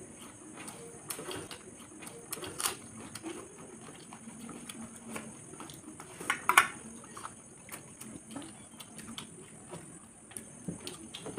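Eating by hand: fingers mixing rice and egg curry on steel plates, with chewing and lip smacks heard as scattered small clicks and a louder cluster of clicks about six and a half seconds in.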